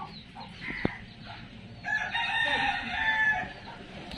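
A rooster crows once, a single drawn-out call of about a second and a half starting about two seconds in. A sharp click is heard just under a second in.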